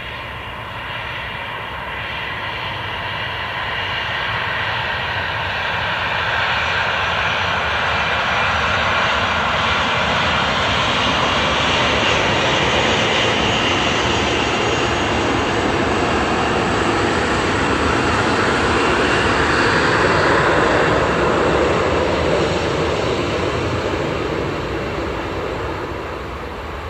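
Qantas Boeing 737-800's twin jet engines at takeoff power as it rolls down the runway. The engines' roar and high whine build up, peak about three-quarters of the way through, then fade as the jet moves away.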